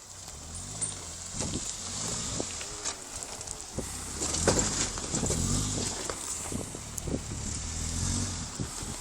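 A small 4x4's engine running under load off-road, its pitch rising and falling several times as the throttle is worked, with a few knocks partway through.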